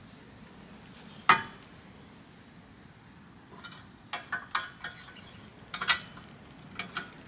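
Metal clanks and clinks from a pickup's swing-out spare-tire carrier and its latch hardware at the rear bumper as it is shut and secured: one sharp ringing clank about a second in, then a run of quicker metal clinks and knocks from about halfway, and two more near the end.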